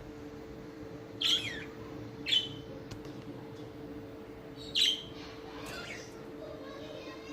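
Pet budgerigars giving short, sharp chirping calls, four in a few seconds, over a steady low hum.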